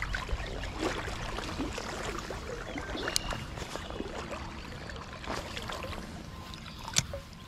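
Creek water running and splashing, with many small irregular splashes and clicks and one sharper click near the end.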